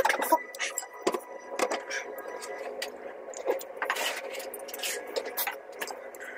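A spoon and chopsticks clinking and scraping against a ramen bowl as broth and noodles are scooped up, in many short, irregular clicks over a steady background hum.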